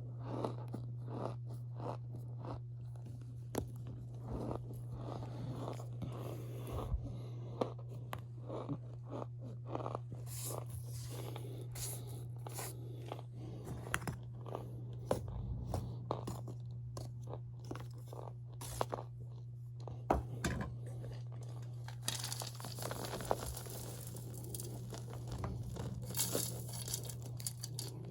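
Powdery cornstarch being crunched and compressed, a steady run of quick, sharp crunches and squeaks that grow denser and brighter near the end, over a steady low hum.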